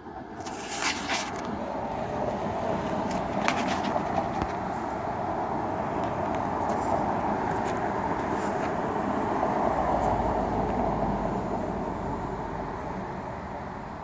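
A road vehicle passing by: a broad rushing noise that builds, peaks with a low rumble about ten seconds in, then fades. A few sharp clicks near the start.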